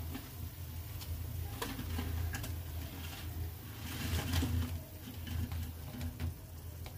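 Onion-masala gravy bubbling at the boil in a pan, with soft plops and patter as fried gram-flour (besan) pakoras are tipped in from a steel plate. A low steady hum lies underneath.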